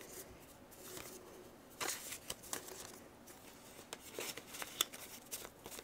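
Soft rustling and flicking of a stack of paper cards handled by hand, with a few faint clicks and a slightly louder rustle just under two seconds in.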